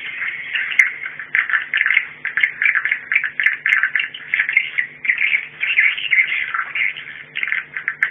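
Recorded swiftlet call, a 'warning sound' walet lure track: dense, rapid twittering chirps with almost no gaps, over a faint steady hum.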